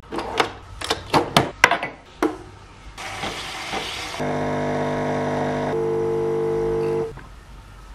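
Nespresso Lattissima Touch coffee machine: a run of clicks as its lid and buttons are worked, then a short hiss, then from about four seconds in a steady buzzing pump hum while it froths and pours milk. The hum stops about seven seconds in.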